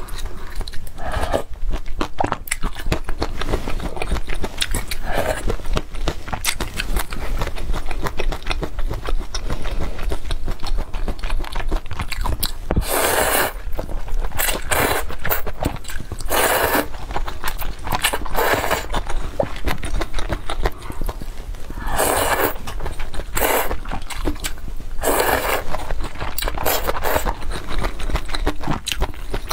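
Close-miked chewing of noodles, tofu skin and sour bamboo shoots in a spicy broth, with soft wet clicks throughout. There are several loud slurps of noodles, about a second each, in the second half.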